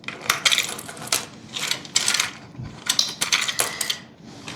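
Curtain-track gliders being slid along and pulled out of a curtain track: a run of irregular clicks and short rattling scrapes.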